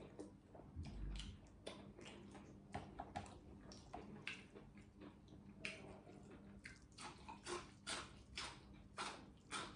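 Close-miked chewing and crunching of food, with a soft low thump about a second in. From around seven seconds, crisp crunches come at about two a second as raw green onion stalks are bitten and chewed.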